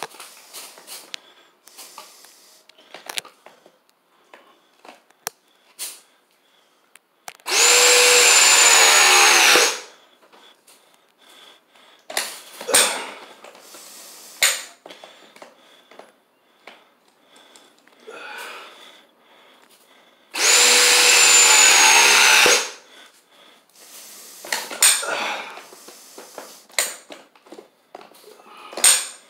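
RIDGID battery-powered ProPress tool running two press cycles on copper water-line fittings, each a steady motor whine of about two seconds that cuts off, the first about a quarter of the way in and the second about two-thirds in. Small clicks and knocks from handling the tool and its jaw come in between.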